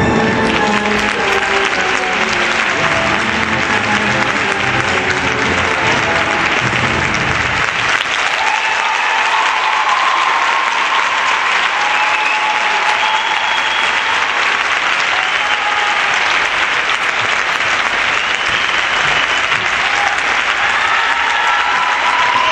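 Arena crowd applauding with scattered cheers as a figure skating program ends; the program music plays under the applause for the first few seconds and stops about a third of the way in.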